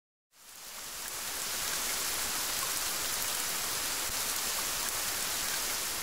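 A steady, even rain-like hiss that fades in from silence in the first second and then holds level.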